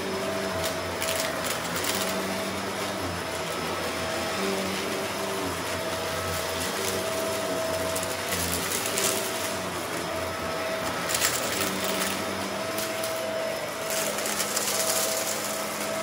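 Shark upright vacuum cleaner running steadily while it is pushed back and forth over a shag rug. Its motor hum wavers in tone, with a few brief rattles along the way.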